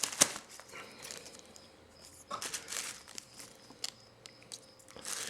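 Short bursts of crinkling from foil trading-card pack wrappers being handled and torn open, three times, with small clicks of card handling between.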